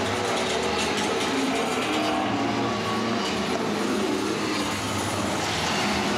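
Live noise-music performance: a continuous, dense wall of harsh noise with wavering drones and a low hum underneath, steady in loudness throughout.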